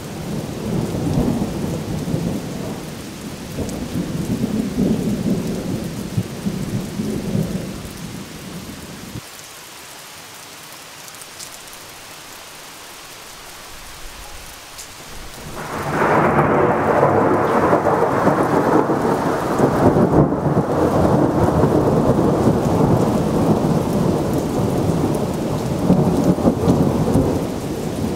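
Thunder rolling in a thunderstorm, with rain falling underneath. A low rumble dies away about eight seconds in; after a quieter stretch, a loud thunderclap breaks about sixteen seconds in and keeps rumbling.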